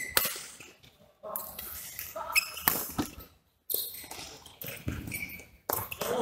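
Badminton rackets striking a shuttlecock in a doubles rally: a string of sharp hits about a second apart, with short squeaks of shoes on the court floor between them.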